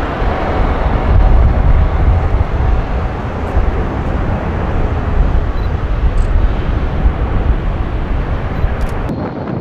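Airbus A380's jet engines rumbling as it flies past, a deep, steady roar loudest between one and two seconds in. The sound drops away sharply near the end.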